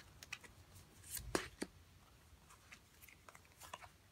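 Tarot cards being handled and laid down on a table by hand: a few faint taps and soft slides, with two sharper taps about a second and a half in.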